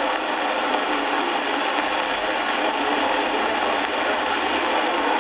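Steady rushing noise with no distinct tones or events, even throughout.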